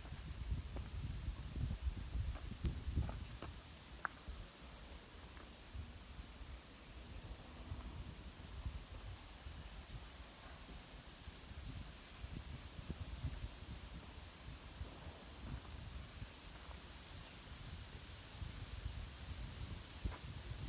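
Steady, high-pitched insect chorus droning without a break, over irregular low thumps and rumble from walking on a forest trail.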